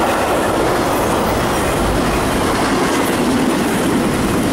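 CSX double-stack intermodal container cars rolling past: a steady noise of steel wheels on the rails.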